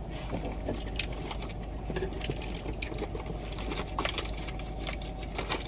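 Light, irregular clicking and jingling of small objects being handled in a car, over a steady low hum.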